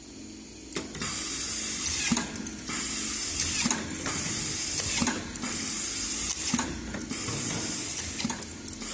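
Automatic desktop screw-fastening machine driving screws one after another: about five cycles, each a second or so of high hissing whir with clicks between, roughly one screw every 1.2 seconds.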